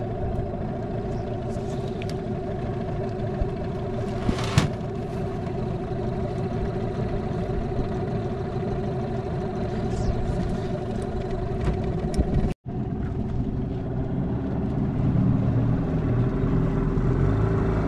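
Boat's outboard motor running steadily under way, with a brief hiss about four and a half seconds in and a momentary dropout of all sound about twelve and a half seconds in.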